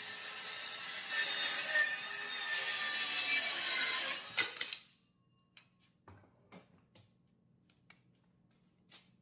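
Cordless circular saw cutting through a pine board along a straightedge guide for about four and a half seconds, then switched off. A few light knocks and clicks follow as the saw is set down.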